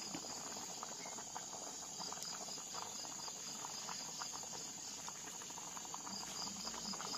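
Insects trilling steadily with a high, pulsing chirp. Small crackles and ticks come from the wood fire burning in a stone hearth under a boiling pot.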